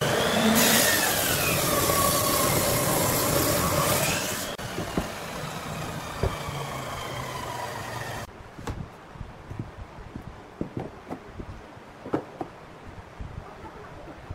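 Table saw blade cutting through a glued-up wooden block for about four seconds, its whine dipping and then rising in pitch under load, then the saw running more quietly without cutting. After a sudden drop about eight seconds in, wooden pieces knock and click as they are handled.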